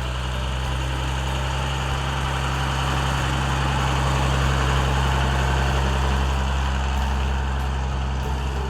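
Heavy military artillery vehicle's engine idling with a steady low rumble, swelling slightly in the middle.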